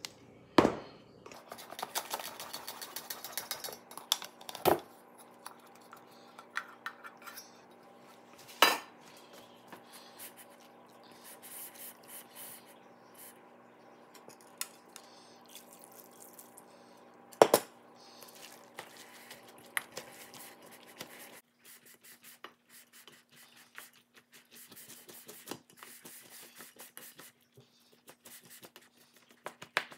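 Cooked sushi rice being scooped and mixed in a stainless steel bowl: a plastic rice paddle and the rice-cooker pot scrape and clatter against the metal, with sharp knocks about half a second, five, nine and seventeen and a half seconds in.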